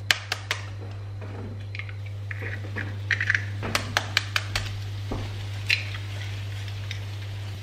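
Two eggs cracked into an oiled nonstick frying pan: a quick run of sharp shell cracks right at the start, then another run about four seconds in, with a light crackling sizzle of egg in hot oil between them. A steady low hum runs underneath.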